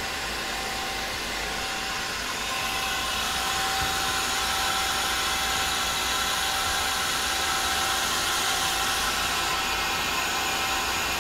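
Mazak CNC lathe with live tooling running a circle-milling program: a steady machine hum and hiss with a thin steady whine, a little louder from about three seconds in. The tool is moving through its path in the air, not cutting metal.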